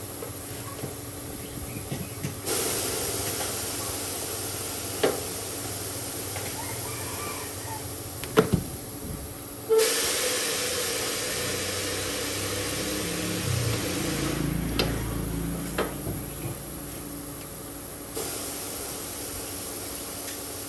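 Compressed air hissing in long bursts that start and stop abruptly, with a few sharp metallic knocks in between.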